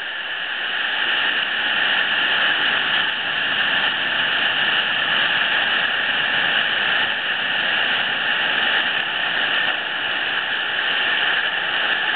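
Steady rushing of churning sea water, growing louder over the first couple of seconds and then holding.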